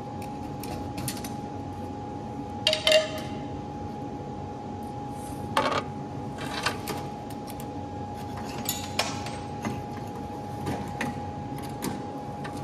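Metal clanks and knocks as the cast-iron manifold is worked loose from the studs of a Ford GPW's four-cylinder flathead engine and lifted off. There are scattered single knocks, the loudest cluster about three seconds in, over a steady hum with a constant tone.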